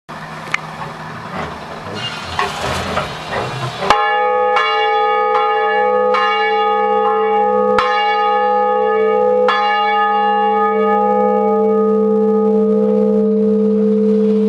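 A church bell of about 380 kg, tuned to G sharp and recast by Farnier in 1913, rung by hand, its curved yoke pushed by foot. A few seconds of scuffing and creaking come as it is set swinging; then the clapper strikes about four seconds in and roughly once a second for several seconds. After that the strikes stop and the bell's deep hum rings on.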